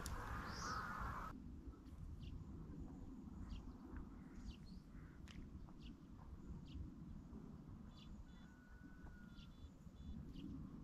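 Quiet lakeside ambience: faint, scattered chirps of small birds over a steady low rumble.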